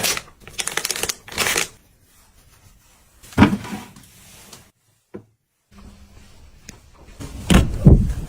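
Rustling and handling noises in short bursts, with a sharp knock about three seconds in and a few heavier thumps near the end.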